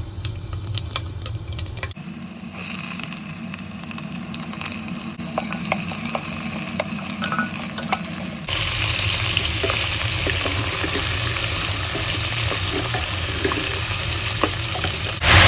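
Food frying and sizzling in a hot pan while being stirred, with small scrapes and clicks of the spoon. The sound changes abruptly about two seconds in and again past halfway.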